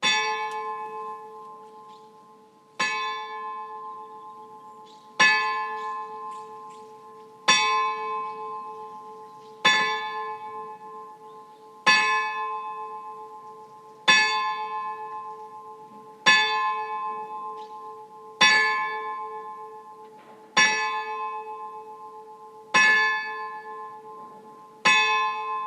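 A single large bell tolling slowly, struck twelve times about two seconds apart. Each stroke rings on and fades before the next.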